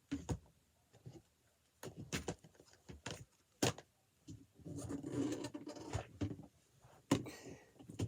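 Toys being handled and moved about: a series of knocks and clicks, with a stretch of rustling about five seconds in.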